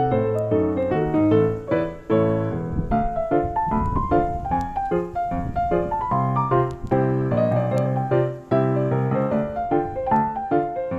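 Background piano music: a steady melody of repeated notes over low bass notes.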